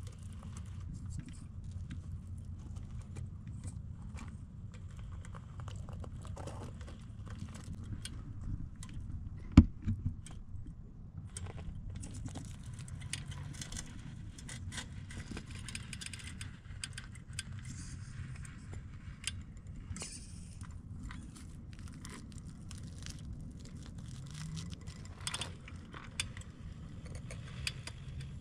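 RC rock crawler's electric drivetrain running at crawling speed, with tyres and aluminium chassis clicking and scraping over rock. One sharp knock about ten seconds in.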